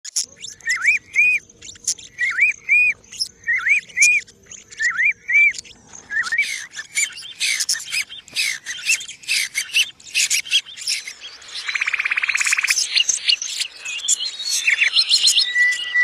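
Songbirds singing and calling in turn: first a pair of quick whistled rising-and-falling notes repeated about every second and a half, then a busier jumble of varied chirps, a short buzzing trill about twelve seconds in, and fast rising notes near the end.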